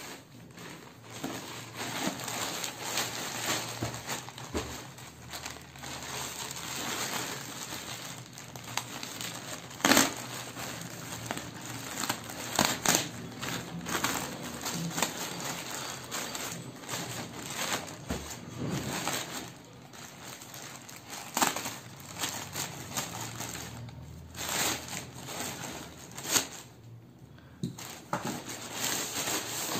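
Crinkly plastic courier mailer bag being cut with a utility knife, torn and crumpled, then a black plastic bag rustling as boxes are pulled out of it, with a few sharp crackles of plastic.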